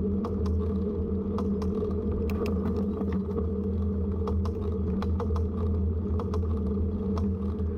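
Bicycle riding along a road: steady rolling rumble with irregular rattling clicks.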